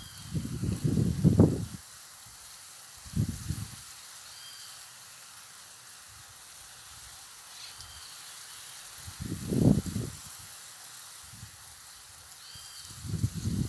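A steady hiss broken by four low rumbling bursts, the loudest about a second in, with faint short high chirps recurring about every four seconds.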